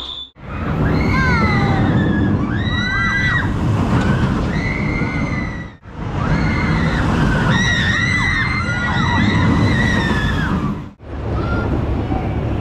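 Roller coaster trains running along steel track with a loud rumble while riders scream over it, in two passes of about five seconds each that start and stop abruptly. Near the end a quieter stretch of station sounds follows.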